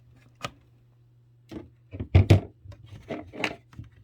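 Handling noises from working on a stand mixer: a single click, then a cluster of knocks and rubbing about two seconds in, with a few lighter knocks after, as the damaged power cord is worked loose from the housing.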